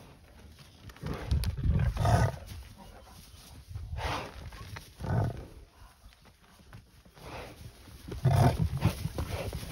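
Lions growling and snarling while they attack a Cape buffalo: several loud, deep bursts with pauses between them. The longest bursts come about a second in and near the end.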